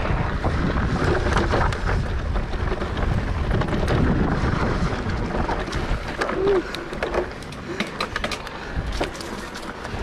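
Mountain bike riding on a dry dirt trail: wind rumbling on the microphone and tyres rolling over dirt, with frequent short clicks and rattles from the bike over rough ground. The wind rumble eases a little past halfway, leaving the clicks and rattles plainer.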